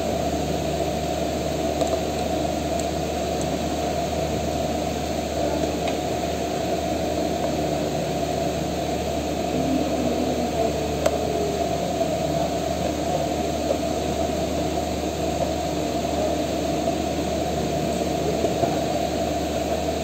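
Steady mechanical hum with a few faint clicks.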